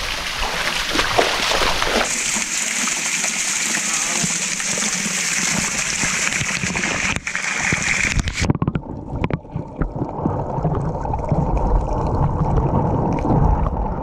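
Rushing, splashing water at a small waterfall pool. About eight seconds in the sound suddenly turns muffled, leaving a dull underwater rumble of moving water.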